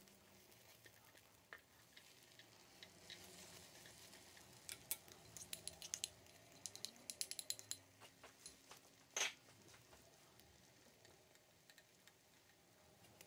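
Faint sizzling of egg cooking in a rectangular nonstick omelette pan, with light clicks and ticks of utensils against the pan as the egg roll is turned, clustered in the middle, and one sharper knock about nine seconds in.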